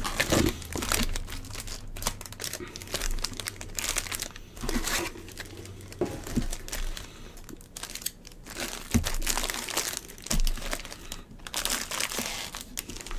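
Foil wrappers of Bowman Baseball trading-card packs crinkling and rustling as they are handled, with a couple of light knocks about two thirds of the way through.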